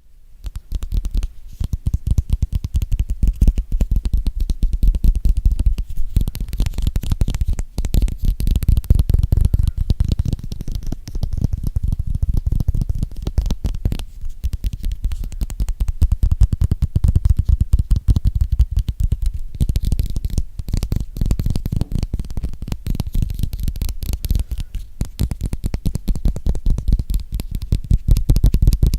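ASMR fast tapping with fingers and fingernails on an object held close to a microphone: many quick taps a second, almost without a break, each with a heavy low thud.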